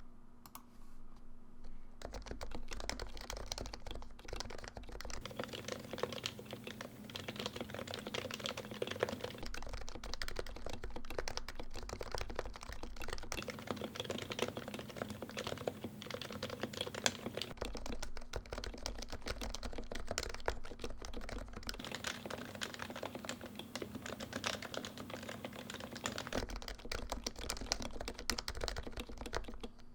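Typing on an HHKB Professional JP keyboard with Topre electrostatic capacitive switches: a fast, continuous stream of keystrokes that starts about two seconds in.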